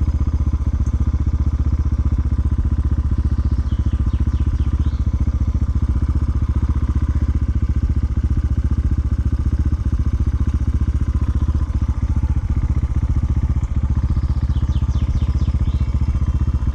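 Single-cylinder dirt-bike engine idling steadily, its even pulse unchanged throughout.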